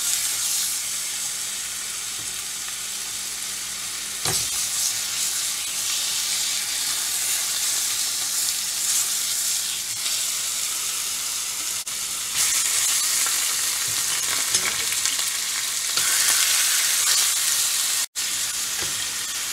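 Marinated fish steaks sizzling as they are laid into hot oil, caramel sauce and fried garlic in a stainless steel frying pan, the hiss swelling louder about twelve and again about sixteen seconds in as more pieces go in. A short knock about four seconds in.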